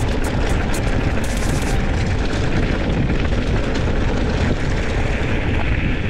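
Wind buffeting the microphone while riding a mountain bike on a trail: a loud, steady rumble, with a few short rattles and clicks in the first two seconds.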